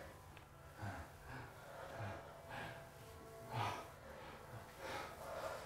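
A person's breathing close up: irregular soft breaths and gasps, about one a second, the loudest a little past halfway.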